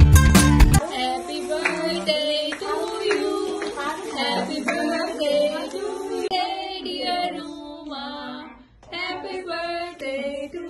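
A loud strummed guitar jingle cuts off abruptly just under a second in, followed by voices singing a birthday song.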